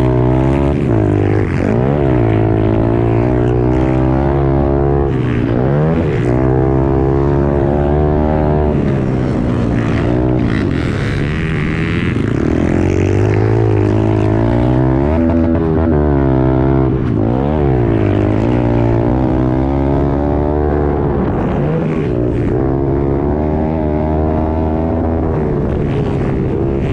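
Onboard sound of a Honda CRF110 pit bike's small single-cylinder four-stroke engine racing around a motocross track, revving up and dropping back again and again as the rider accelerates, shifts and backs off for jumps and corners, over steady wind and ground noise.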